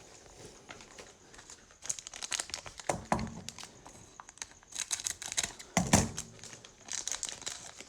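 Foil trading-card pack wrapper crinkling and tearing as it is opened, in several spells of quick, crackly rustling.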